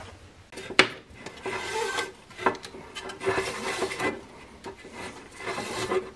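Recoil starter of a lawn mower engine being worked by hand on its sheet-metal shroud: the old starter rope is pulled out against the rewind spring, giving rubbing and scraping of the plastic pulley and housing. A sharp knock comes a little under a second in.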